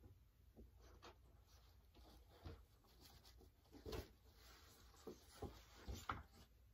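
Faint scattered knocks and rustling of someone moving about a small room and handling things, with a few louder knocks about 4 and 6 seconds in.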